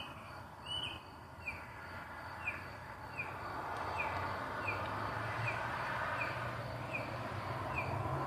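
A single bird-like call repeated evenly about every three-quarters of a second: a short high chirp falling in pitch, the same each time. A low steady rumble grows louder through the second half.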